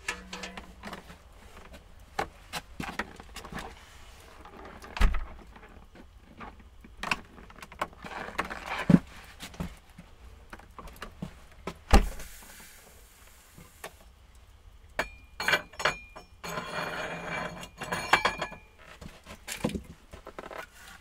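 Things being handled: scattered clicks, knocks and rustling, with two heavier thumps about five and twelve seconds in and a longer rustle near the end.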